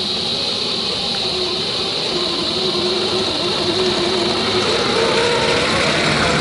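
Whine of a 1/10-scale RC rock crawler's 35-turn brushed electric motor and gear drive as it crawls over the trail. The pitch wavers with the throttle and climbs in the last couple of seconds as the truck comes close, over a steady high buzz.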